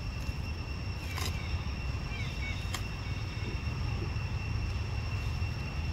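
Outdoor ambience: a steady low rumble under a thin, constant high-pitched tone. A couple of sharp clicks, about a second in and near the middle, and a few brief soft chirps stand out.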